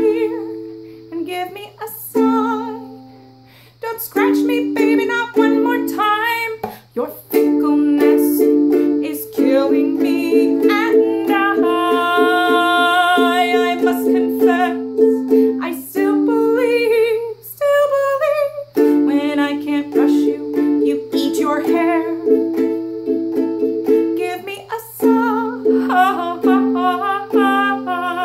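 Kohala ukulele strummed in chords, with a woman's voice singing along over it.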